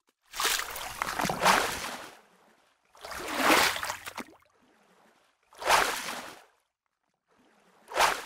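Liquid splash and slosh sound effects in separate bursts of a second or two each, three with short silences between them and a fourth starting near the end.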